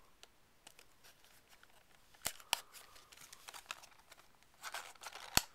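A small cardboard puzzle box being handled and opened, its tape cut: scattered light taps, scrapes and crinkles, with a few sharp clicks, the loudest just before the end.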